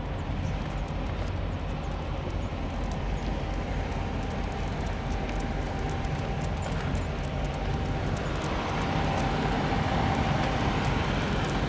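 Steady rumble of distant vehicle engines, swelling about eight seconds in with a faint steady whine on top.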